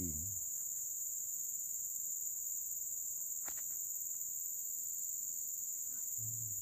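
A steady, high-pitched chorus of insects droning without a break, with a single faint click about three and a half seconds in.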